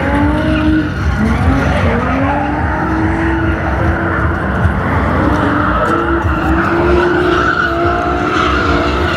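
Drift cars out on the track: engines revving up and down while tyres squeal in long, sustained slides.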